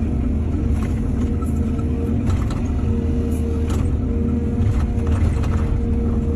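Excavator's diesel engine running steadily with a low rumble, with several short sharp knocks over it.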